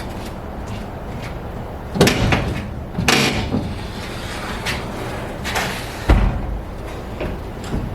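A few heavy thumps and bangs, like a door or panel being slammed, the loudest about two, three and six seconds in, with lighter knocks between them.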